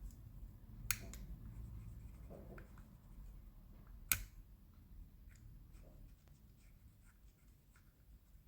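Faint small taps and scratches of a chrome paint pen and hands working on a small model fire engine, with two sharp clicks, one about a second in and one about four seconds in.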